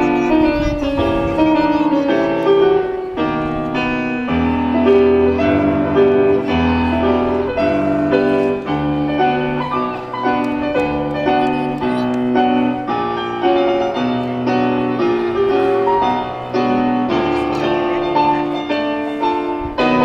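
Piano music, a melody played over lower bass notes.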